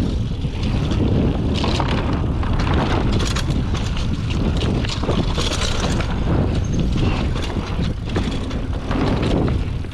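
Wind rushing over a GoPro microphone while a mountain bike is ridden along a dirt trail, with frequent knocks and rattles from the bike over bumps.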